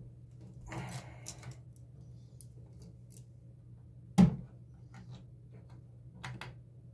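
Hands handling a wire and a plastic wall light switch: a scratchy rustle about a second in, one sharp loud click about four seconds in, and a couple of lighter clicks near the end, over a steady low hum.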